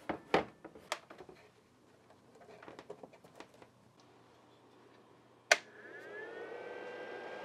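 Clicks and knocks of the Creality CR10S 3D printer's control box being handled, then a sharp click of the power switch about five and a half seconds in, after which its newly replaced 12 V cooling fans spin up, rising in pitch and settling into a steady whirr.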